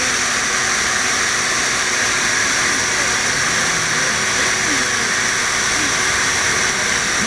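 Bee vacuum running steadily while sucking a honeybee swarm off a tree trunk into a bucket, an even, airy motor noise with no change in pitch.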